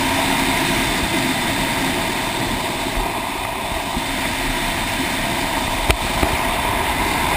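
Motorcycle riding at a steady road speed: engine running under steady wind noise on the microphone, with two short clicks about six seconds in.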